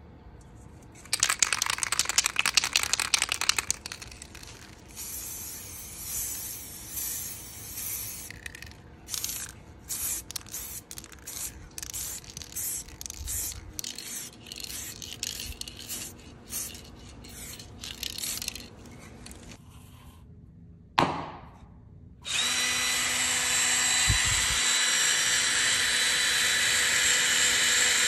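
An aerosol spray-paint can shaken hard, its mixing ball rattling for a couple of seconds, then spray paint hissing out in many short bursts. Near the end a short falling whoosh, then a DeWalt cordless drill running steadily as it bores into a shoe.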